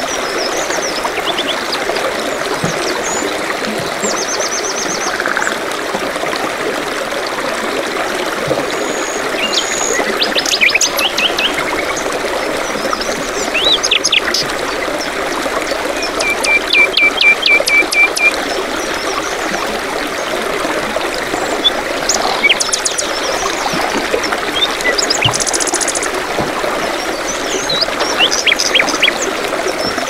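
Steady rush of small waterfalls and a stream, with songbirds chirping and trilling over it. About halfway through, one bird gives a quick series of even notes, about four a second.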